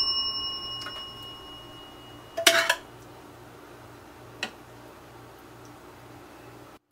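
A bell-like metallic ring fading away over the first two seconds, then a short clatter of a metal serving spoon against the aluminium pot and dishes about two and a half seconds in, and a single light click near four and a half seconds.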